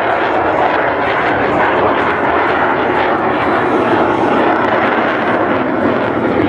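Loud, steady jet noise from an F-22 Raptor's twin Pratt & Whitney F119 turbofan engines in flight.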